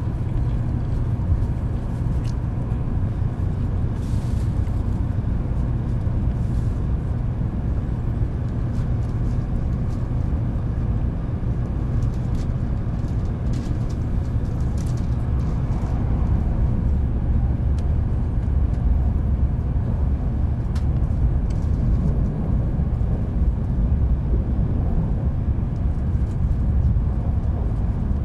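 Cabin noise inside a 700 series Shinkansen train as it runs: a steady low rumble, growing a little louder about halfway through, with a few faint clicks.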